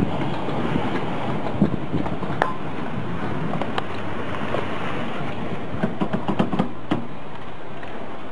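Steady rumbling outdoor noise of vehicles, with a few sharp clicks and a run of light knocks about six to seven seconds in.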